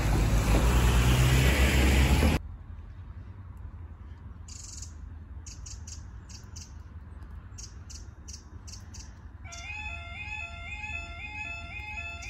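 A car drives past for about two seconds and is cut off abruptly. About nine and a half seconds in, the level crossing's electronic warning alarm starts up as the amber lights come on: a rising two-note warble that repeats about twice a second, signalling that the barriers are about to lower.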